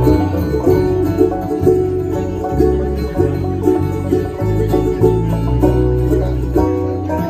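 Bluegrass band playing live: banjo rolls and mandolin over acoustic guitar and a walking electric bass line.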